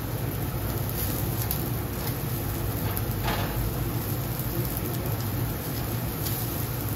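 Meat sizzling on a commercial gas-fired grill: a steady hiss over a low hum, with a few light clicks of metal tongs on the wire basket and grate.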